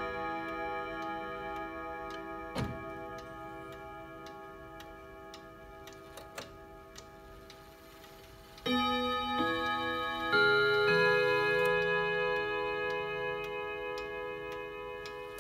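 ODO 62 French chiming wall clock with 11 rod gongs struck by 11 hammers: notes of its carillon tune ring and slowly fade while the clock ticks. Fresh notes are struck about nine and ten seconds in and ring out.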